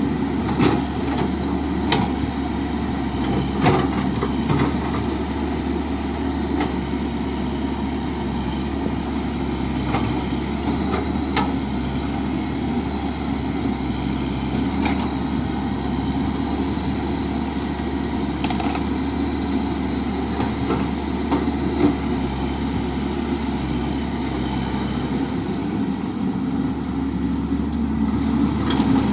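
Komatsu hydraulic excavator's diesel engine running steadily, with a few short sharp clanks here and there.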